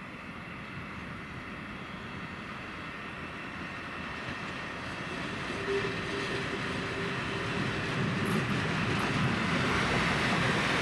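Czech 'Brejlovec' diesel locomotive running light, its engine and wheels growing steadily louder as it approaches and draws level. A thin steady whine sounds through its middle stretch.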